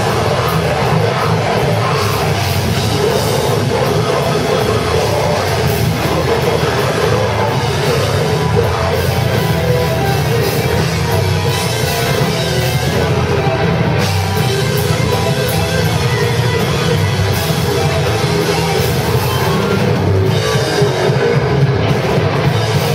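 Live heavy metal band playing loudly: electric guitar and drum kit, with a vocalist on the microphone.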